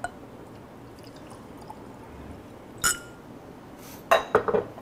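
Hibiki whisky poured from its glass bottle into a small glass. One sharp knock comes about three seconds in, and a quick cluster of glassy knocks comes near the end.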